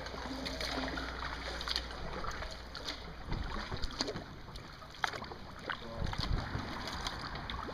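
Kayak paddling: the paddle blades dip and lift, with irregular small splashes and water dripping, over a light low rumble of wind on the microphone.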